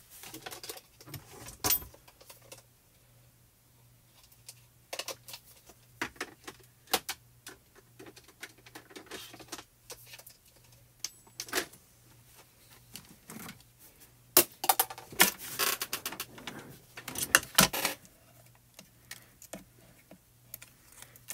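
Scattered clicks and light clatter of small plastic craft supplies being handled and set down, with a busier run of rattling about two-thirds of the way through, over a faint steady hum.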